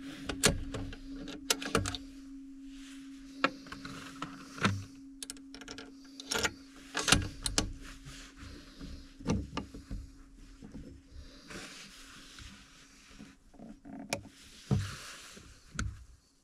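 Scattered clicks and knocks of a bolt-action rifle being handled on the bench, hands working at its grip and action, over a steady low hum.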